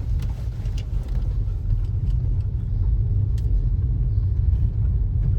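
Steady low rumble of a moving car heard from inside the cabin: engine and road noise while driving, with a few faint clicks.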